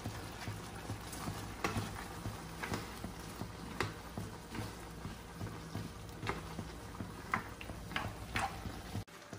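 A utensil and vegetables clicking and tapping irregularly against a nonstick frying pan as string beans, potatoes and carrots are stirred, over a steady low hum.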